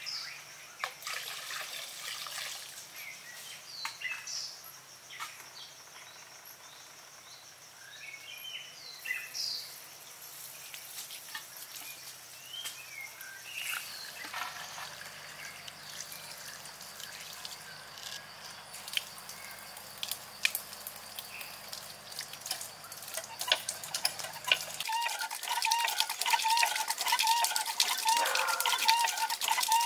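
Small birds chirping over a thin trickle of water from a pipe in a rock waterfall. Near the end it turns louder as water poured down a bamboo channel splashes onto a miniature bamboo water wheel.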